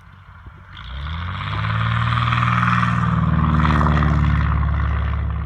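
Cessna 172's piston engine and propeller passing low and close on its landing approach. It swells in about a second in and is loudest just past the middle, then its pitch drops slightly as it goes by and the sound eases off.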